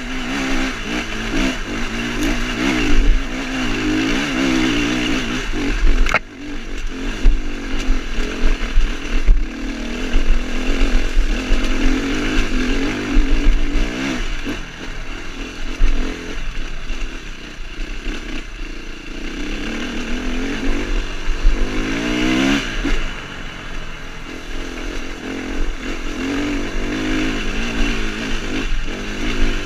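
Dirt bike engine pulling up a steep, rocky trail, its revs rising and falling with the throttle and climbing sharply about two-thirds of the way through, with a sharp knock about six seconds in.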